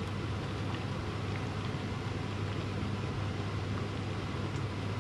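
Steady fan-like hum with a low drone underneath, unchanging.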